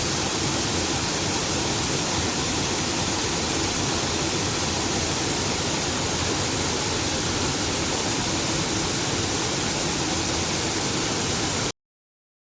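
Water rushing steadily over a small artificial waterfall on the Mirna River. The sound cuts off suddenly to silence near the end.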